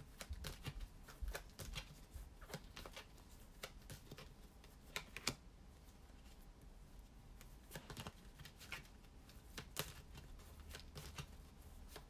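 A deck of Wisdom of the Oracle cards being shuffled by hand: soft, irregular flicks and taps of card against card, thinning out for a couple of seconds in the middle.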